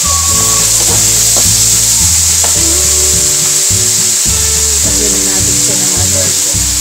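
Diced chayote sizzling in hot oil in an aluminium wok, stirred with a wooden spatula that scrapes across the pan about once a second.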